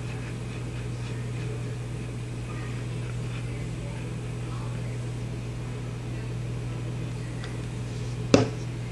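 Steady low mechanical hum of room equipment, with one sharp knock near the end.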